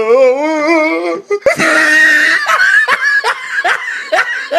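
A wavering high voice, then a sudden loud noise with a steady high tone lasting just under a second, followed by a person laughing in short repeated bursts, about two or three a second.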